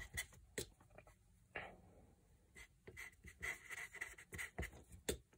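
Felt-tip permanent marker writing on paper laid on a clipboard: faint, scratchy strokes that start and stop with each letter, with short pauses between them.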